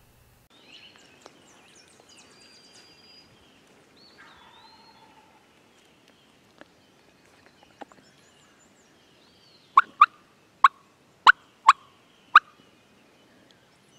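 Faint songbird chirps early on, then six sharp, loud turkey clucks in an uneven run over about two and a half seconds near the end.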